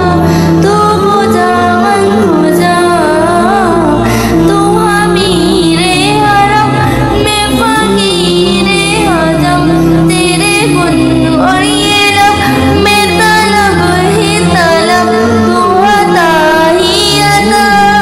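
A female voice singing a naat, an Islamic devotional song, in long ornamented melodic lines over a steady, sustained low accompaniment.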